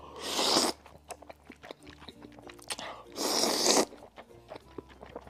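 Hot noodles slurped twice, about three seconds apart, with faint chewing and mouth clicks between the slurps, over quiet background music.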